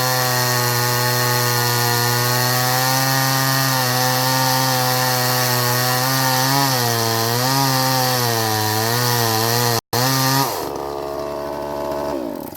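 Two-stroke chainsaw at full throttle cutting into a large log, its pitch wavering as the load on the chain changes. There is a brief break about ten seconds in, and then the engine drops away toward idle near the end. The chain is filed at the wrong angle and is making sawdust rather than chips.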